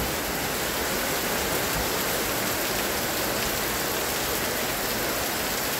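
Heavy rain pouring down steadily, a dense, even hiss without a break.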